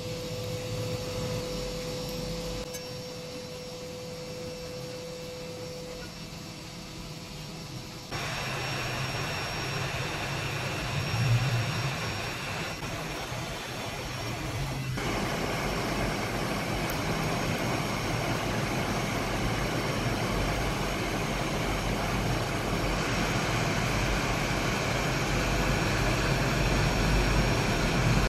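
Hot-air rework gun blowing steadily on a freshly reballed and programmed chip as it is soldered back onto a TV main board. The rushing airflow comes in about eight seconds in and gets louder around fifteen seconds.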